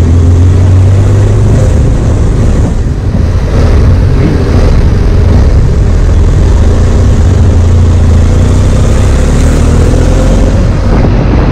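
BMW F800's parallel-twin engine running steadily while the motorcycle moves at low speed through traffic.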